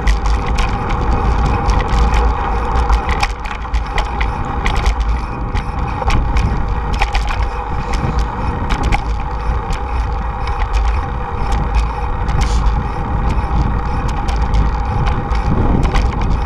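Wind buffeting the microphone of a camera on a moving bicycle, a heavy fluctuating rumble over the steady noise of tyres rolling on pavement, with frequent small clicks and rattles from the bike and mount over bumps.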